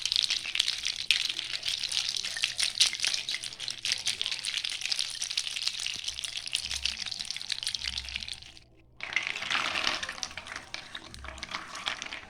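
Homemade water-effect rattle of many small bottle caps strung on nylon line from a larger lid, shaken to give a dense clicking rush like running water. It stops for a moment about nine seconds in, then starts again.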